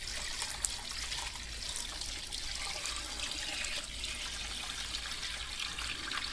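Carburetor-cleaning solvent being poured in a steady stream into a cut-open plastic antifreeze jug, splashing and trickling as it fills.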